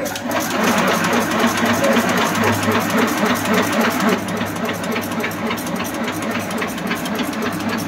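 Automatic agarbatti (incense stick) making machine running: a rapid, even mechanical clatter over a steady motor hum.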